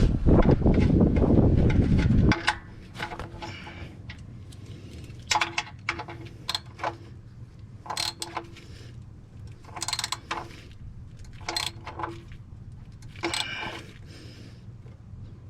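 A loud low rushing noise for about the first two seconds. Then about a dozen separate metallic clinks and rattles of tools or parts being handled, several with a brief ringing tone.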